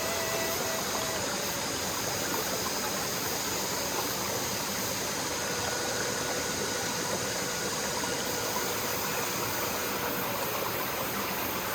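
Mountain stream rushing steadily over rocks, with faint long-held danso (Korean bamboo flute) notes: one fading out about a second in, another held from about five to ten seconds in.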